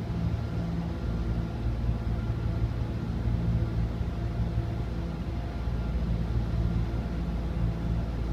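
An engine idling with a steady low hum.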